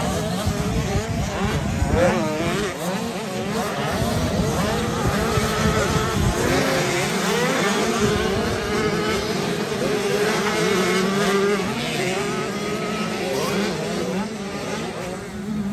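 Motocross bike engine running hard, its pitch rising and falling again and again with the throttle and gear changes.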